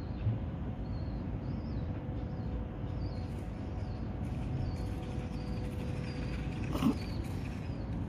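Outdoor background of a steady low rumble, with a series of faint, short high chirps in the first half. One short, loud call or knock stands out about seven seconds in.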